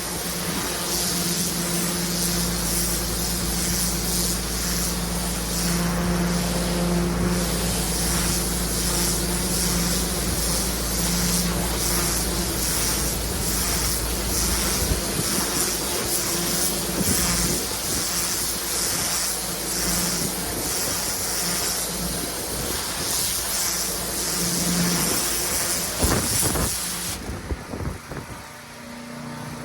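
Pressure washer engine running steadily while its high-pressure water jet hisses against block paving. The spray cuts out for about two seconds near the end while the engine keeps running, then starts again.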